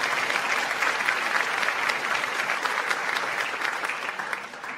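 Canned studio-audience applause, a dense crowd of clapping that tapers off near the end.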